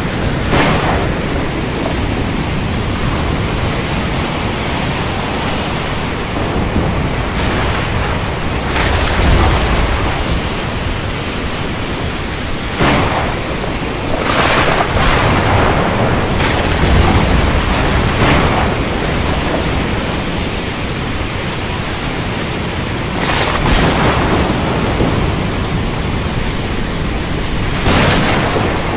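Storm at sea: a steady rush of wind, rain and surf with waves surging and breaking every few seconds, and low thunder rumbling a couple of times.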